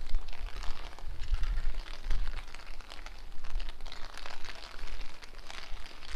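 Rain pattering with a crackly, irregular texture, while gusts of wind buffet the microphone in low rumbles that come and go.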